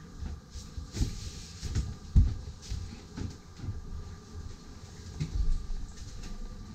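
Irregular dull thumps and a few light knocks, the loudest a little over two seconds in: footsteps and handling as someone moves through a yacht's cabin, over a faint steady hum.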